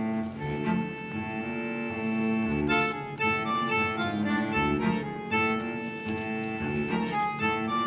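Instrumental background music: a melody of short held notes over sustained chords.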